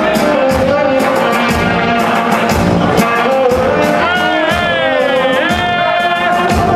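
Live party band playing a loud number with a steady beat, a singer's voice sliding up and down in pitch over it about two thirds of the way through.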